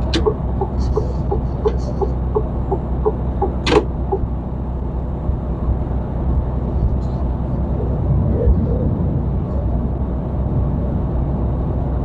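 Steady low drone of a loaded truck cruising on the highway, its engine and tyre noise heard from inside the cab. Over the first four seconds there is an even ticking, about three ticks a second, and one sharper click near the end of it.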